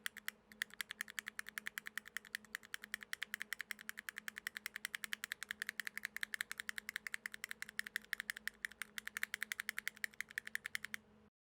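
Mechanical keyboard with Akko CS switches lubed with Vaseline, typed on rapidly in a steady stream of keystroke clacks that stops suddenly near the end.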